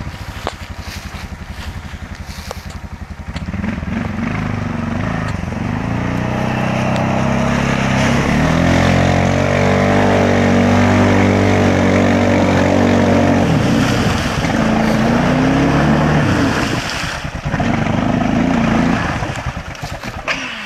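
Arctic Cat TRV 700 ATV engine revving hard under load as the quad ploughs through deep muddy water, with water splashing. The revs build from a few seconds in, hold high through the middle, drop, surge once more, then fall away near the end as the quad comes to a stop in the mud.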